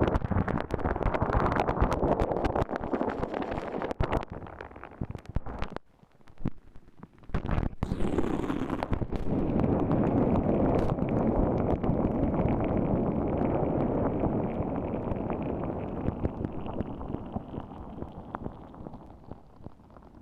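Boiling water bubbling right against a microphone: a dense crackle of popping bubbles. It drops out briefly about six seconds in, comes back, then fades gradually near the end.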